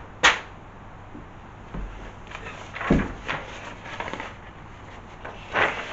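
Sheets of paper being handled: a few short, sharp rustles and flaps, the one about three seconds in with a dull thump.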